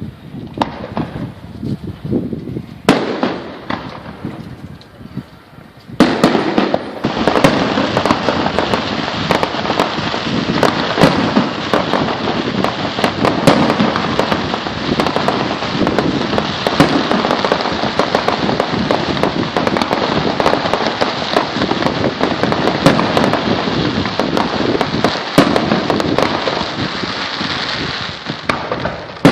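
Fireworks display: a few scattered bangs, then about six seconds in a dense barrage of rapid, overlapping bangs that keeps going.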